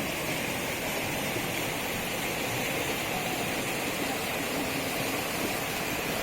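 Steady rush of flowing floodwater, even and unbroken.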